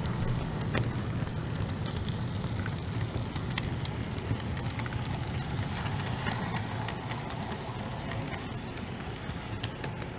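Model train (a Conrail GP15 diesel model pulling freight cars) running past on its track: a steady motor and wheel rumble with scattered small clicks, fading slightly near the end as the cars go by.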